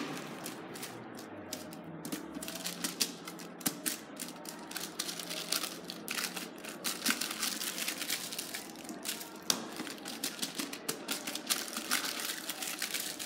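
Stiff paper wrappers crinkling and rustling as bars of soap are folded into them by hand: a fast, uneven run of crisp crackles and rustles.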